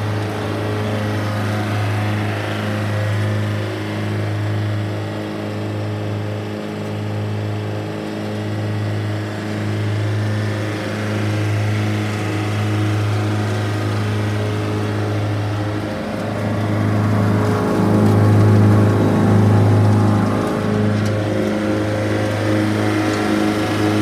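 GreenMech ARB19 wood chipper's engine running steadily with an even hum, a little louder from about two-thirds of the way through.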